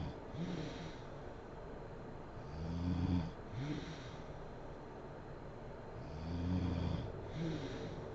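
A sleeping woman snoring in a steady rhythm, about one breath every three and a half seconds. Each breath is a longer, low snore followed by a short snort that rises and falls in pitch.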